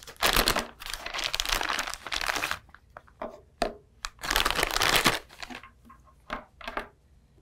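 Clear plastic packaging bag crinkling as a bundle of cables is pulled out of it, in two long stretches about two seconds apart, with a few light clicks and taps in between and afterwards.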